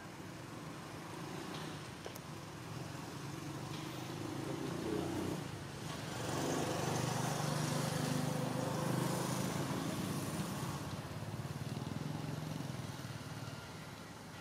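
A motor vehicle's engine passing by: a low hum that grows louder toward the middle and then fades away.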